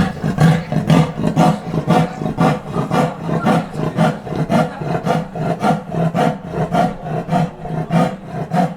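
A big cat, jaguar or leopard by the video, giving a long unbroken run of repeated grunts, about three a second, in the big cats' sawing call.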